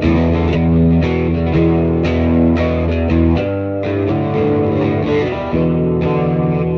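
Instrumental guitar music: a riff with new notes struck about twice a second, the pattern changing a little past halfway through.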